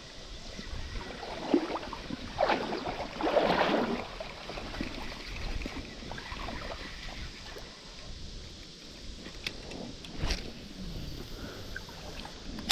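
Water splashing and lapping around a kayak on a river, with a few louder splashes in the first four seconds and a single sharp click about ten seconds in.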